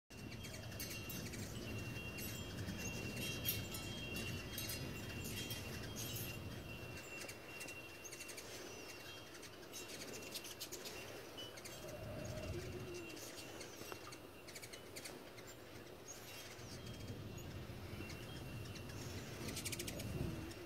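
Ruby-throated hummingbirds chipping and chittering while they chase around nectar feeders, with short, high calls scattered throughout.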